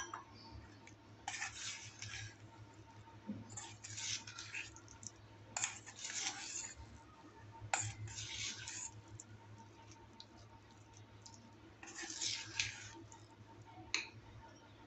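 Metal spoon stirring and scraping thick biscuit-cake batter around a stainless steel bowl, in short strokes of about a second with pauses between, and a few sharp clinks of the spoon against the bowl. A steady low hum runs underneath.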